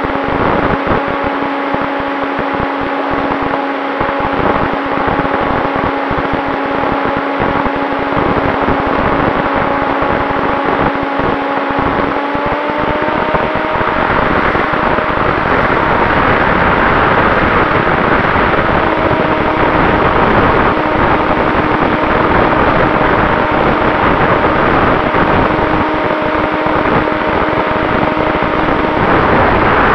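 Onboard audio of a HobbyZone SuperCub's Turnigy XP 3536 brushless electric motor and propeller running in flight, a steady whine over the rush of wind on the plane's microphone. About halfway through, the pitch steps up a little as the throttle opens and the wind rush grows louder.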